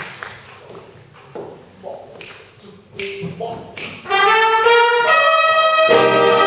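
Applause dies away, then a few faint clicks and stray notes, and about four seconds in a wind band of brass and saxophones comes in together with loud, sustained chords.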